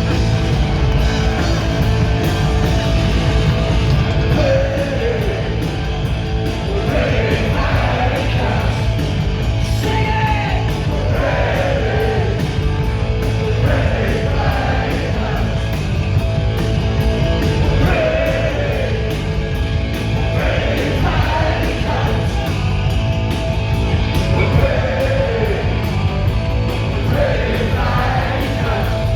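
Punk rock band playing live, the singer shouting the vocal over loud electric guitars, bass and drums.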